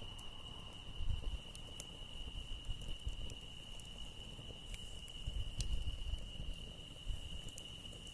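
Insects calling in one unbroken, steady high trill, with scattered sharp crackles from a wood campfire. A low rumble swells and fades, loudest about a second in and again around five to six seconds in.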